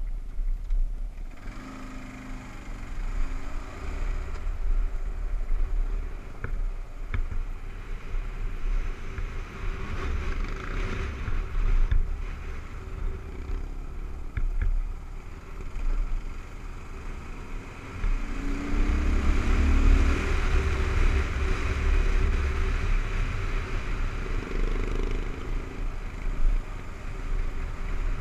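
Kawasaki KLR 650's single-cylinder four-stroke engine running as the bike rides a rough dirt road, its pitch rising and falling with the throttle a few times, over a heavy low rumble, with a few short knocks.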